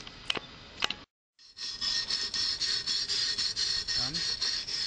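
Fast, even back-and-forth rasping of a tool scraped on a kick scooter's metal deck, like filing something sharp; it starts after a short cut about a second and a half in, with a few sharp clicks before it.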